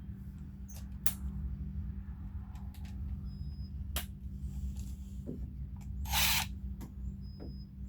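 Power drill-driver running screws on a Jeep door panel, with a steady low motor hum and scattered clicks and knocks. A short, loud rasping burst comes about six seconds in.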